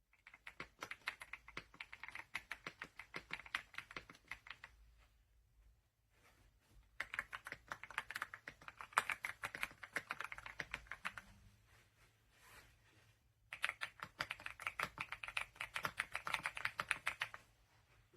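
Mechanical keyboard being typed on quickly, a rapid run of key clicks in three bursts of about four seconds each with short pauses between.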